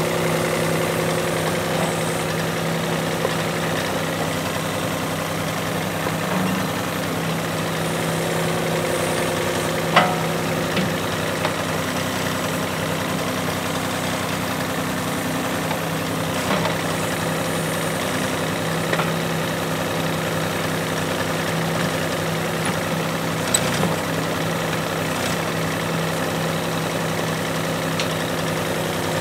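Yuchai YC15-7 mini excavator's diesel engine running steadily while the arm and bucket dig, with a few short knocks, the loudest about a third of the way in.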